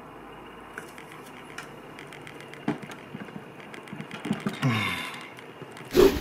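Small clicks, taps and scrapes of a knife's steel tang and brass bolster being worked against a tape-wrapped handle, with a sudden loud noise near the end.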